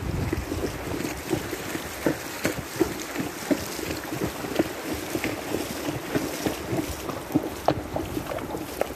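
A palomino mare's hooves splashing through shallow floodwater on a wet trail: an uneven run of short, sharp splashes, with wind rumbling on the microphone near the start.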